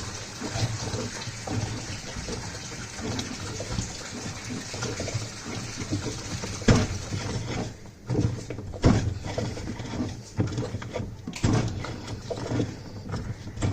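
A 13 mm spanner working the bolt on a washing machine gearbox: scattered metal clicks and knocks, several in the second half, over a steady hiss that thins out about eight seconds in.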